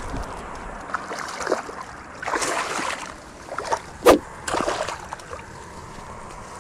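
A hooked largemouth bass thrashing and splashing at the water's surface beside the bank in several irregular bursts. There is one sharp, loud thump about four seconds in.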